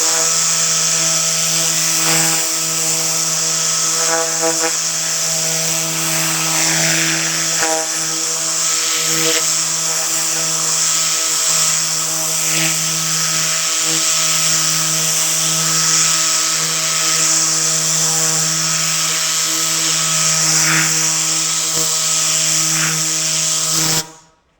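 Tornador compressed-air cleaning gun blowing: a loud, steady hiss of air over a constant whirring hum. It cuts off sharply near the end.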